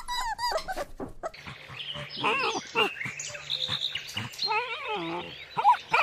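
Puppies whimpering and yipping: a quick run of short, high, rising-and-falling whines.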